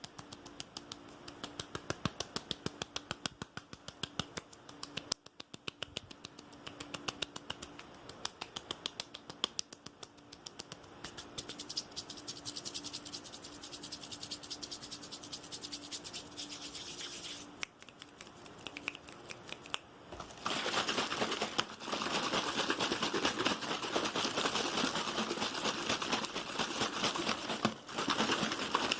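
Fast, aggressive ASMR tapping: a rapid run of sharp taps, several a second. About two-thirds of the way through it gives way to a louder, dense, continuous scratching noise.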